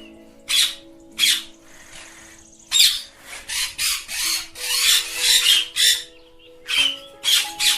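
Indian ringneck parakeets giving short, harsh squawks, a few spaced calls at first and then a quick run of them in the middle.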